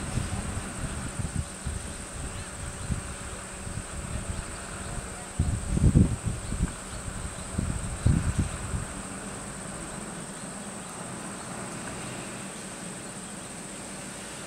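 Steady high-pitched drone of insects such as crickets or cicadas, with a few low rumbling bursts, the loudest about six seconds in and another about eight seconds in.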